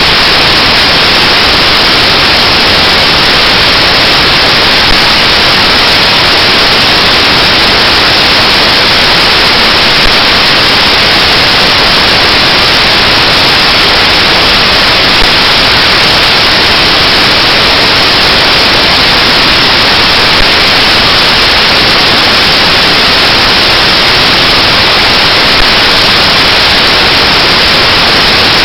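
Loud, perfectly steady hiss of static noise filling the soundtrack, with a faint click about every five seconds.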